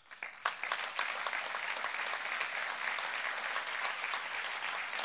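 Audience applauding. It starts with a few scattered claps and swells within about a second into steady, dense applause.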